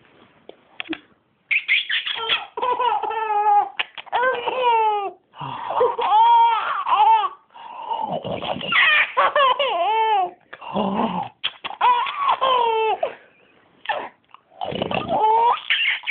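A baby laughing in repeated bouts of high-pitched, squealing giggles, starting about a second and a half in, with a short pause near the end.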